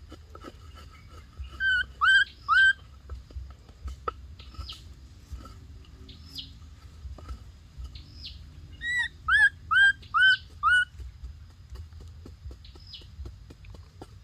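Birds calling: two runs of loud, sharp, repeated falling notes, three about 2 seconds in and five more about 9 seconds in, with a thinner, higher falling call repeating every couple of seconds and light clicks throughout.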